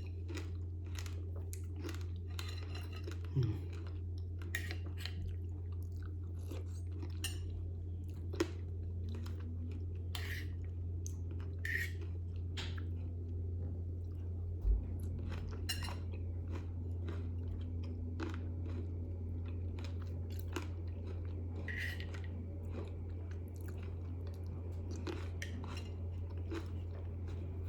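A person chewing a mouthful of berries, pomegranate seeds, coconut slices and ice, with many small crisp crunches, over a steady low hum.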